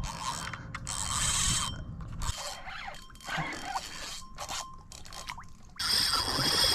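Fishing reel's drag screeching as a hooked fish pulls line off the spool: short rasping runs broken by pauses, then a longer, louder continuous run near the end.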